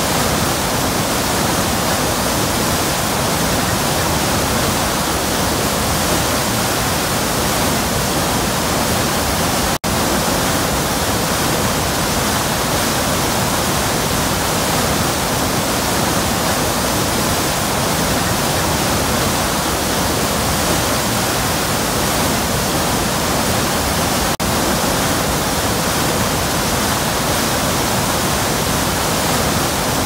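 Large waterfall: a loud, steady, dense rush of falling whitewater with no let-up, dipping for an instant twice.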